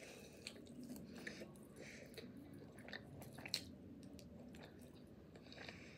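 Faint close-miked chewing of a mouthful of meat, with soft wet mouth smacks and small scattered clicks, and one sharper click about three and a half seconds in.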